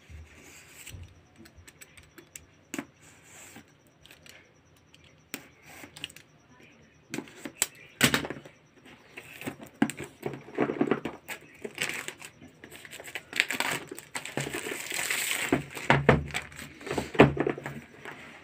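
Plastic shrink-wrap on a phone box being slit with a utility knife, then torn and crinkled as it is peeled off. A few faint clicks and scrapes come first, and the rustling and crackling get louder and busier through the second half.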